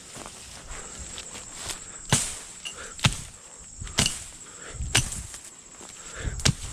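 Axe chopping brush and wood: about five sharp, regular strikes roughly a second apart, each landing with a low thunk.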